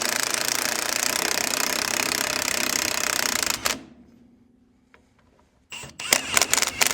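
Milwaukee 1/2-inch impact wrench hammering in one steady run of about four seconds that stops abruptly. After a short pause it gives several quick stuttering bursts near the end.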